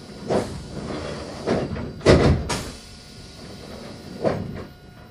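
Sliding passenger doors of a Meitetsu commuter train shutting before departure: a series of separate thuds and knocks as the door leaves close, the loudest about two seconds in.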